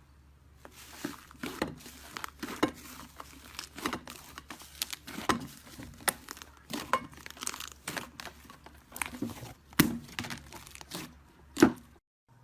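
Clay-type slime being squeezed and pulled apart by hand, giving a dense run of irregular sticky crackles and pops. It cuts off suddenly near the end.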